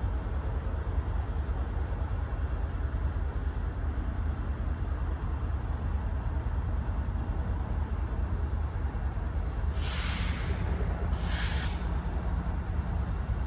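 Two short hisses of air brakes releasing air, about a second and a half apart near the end, over a steady low rumble.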